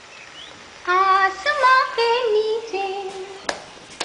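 A woman's singing voice from a song played on a laptop, starting about a second in and lasting about two and a half seconds, followed by a sharp slap near the end.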